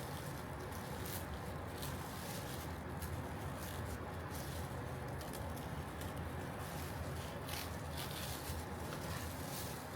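Faint scratching and rustling of masking plastic being cut along the tape with a razor blade, over a steady low hum.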